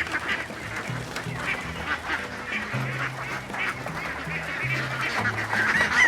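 A flock of domestic ducks quacking in many short overlapping calls, over background music with a steady bass line.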